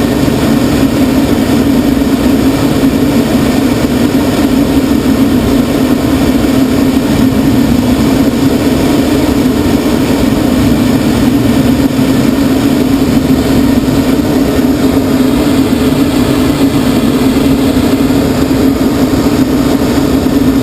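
Steady in-flight noise inside a glider's cockpit: a constant loud drone that does not change.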